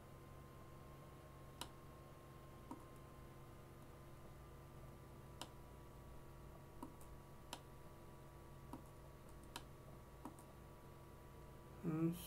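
Sparse single computer mouse clicks, about eight at irregular intervals, over a faint steady electrical hum. A brief sound of a voice comes right at the end.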